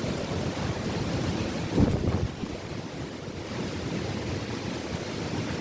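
Gusty storm wind from an approaching hurricane blowing across the microphone over a rush of rough surf, with one harder gust about two seconds in.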